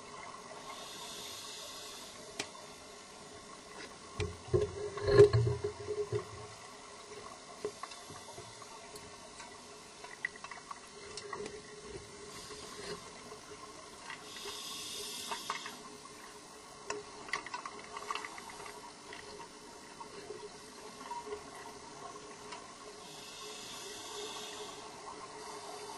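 Scuba diver breathing underwater through a regulator: a hissing inhalation about every ten seconds, with gurgling bursts of exhaled bubbles between them, the loudest about five seconds in, and scattered small clicks.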